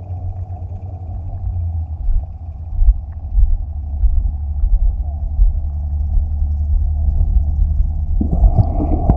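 Steady low, muffled rumble of moving water picked up by an underwater camera's microphone inside its waterproof housing, with a louder hissing wash joining about eight seconds in.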